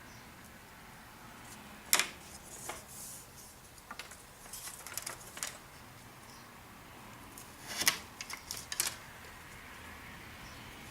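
Light clicks and taps from balsa strips and small tools being handled on a workbench. They come irregularly, with the sharpest about two seconds in and a cluster near the eight-second mark.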